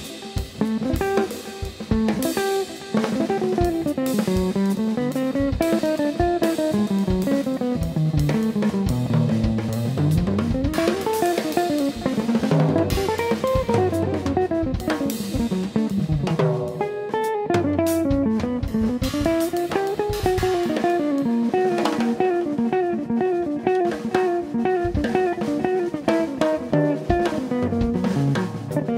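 Hollow-body archtop electric guitar playing quick single-note lines that climb and fall, with a drum kit keeping time underneath: kick, snare and cymbals.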